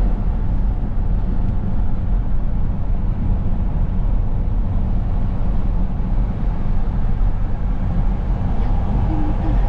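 Steady road noise inside a moving car's cabin at highway speed: an even low rumble of tyres and engine.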